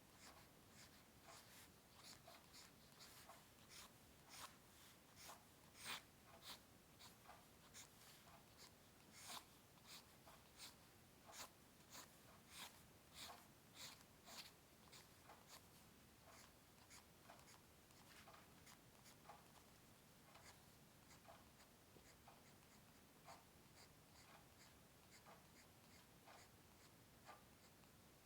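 A drawing tool scratching across paper in short, quick strokes, about two a second, firmer in the first half and lighter after about sixteen seconds.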